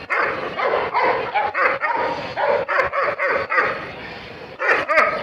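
A dog barking repeatedly, about one bark a second, with a quick run of barks near the end.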